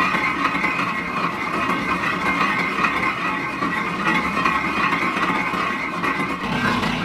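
Steady noise of factory machinery running, with a lower hum strengthening near the end.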